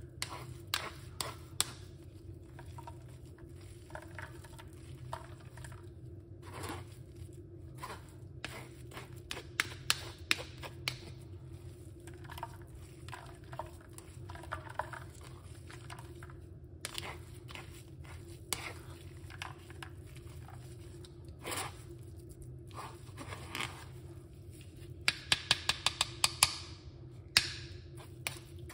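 Metal spoon scraping and pressing wet pulp through a fine mesh sieve, with scattered clicks and taps against the sieve. Near the end comes a quick run of about ten sharp taps, all over a low steady hum.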